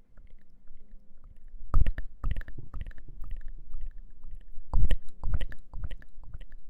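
Close-miked crunchy chewing: two bursts of crisp crackling bites, one about two seconds in and another about five seconds in, with lighter crunching between them.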